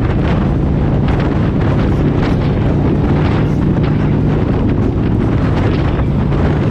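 Heavy wind noise on the microphone over a motorcycle engine running steadily at cruising speed.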